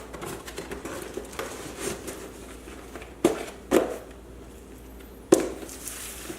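Meal-kit packaging being handled: crinkling and rustling plastic and paper, then three sharp knocks in the second half as items are set down.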